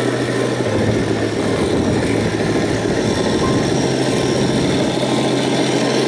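Steady, even-pitched engine rumble, like a vehicle idling or crawling slowly, with a coarse crackling noise over it.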